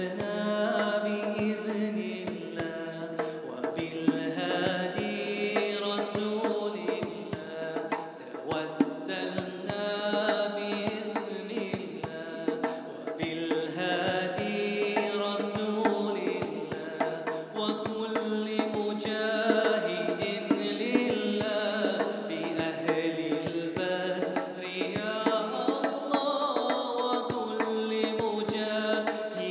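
A man singing an Arabic nasheed (Islamic devotional song) into a microphone, with a djembe beaten by hand under the melody.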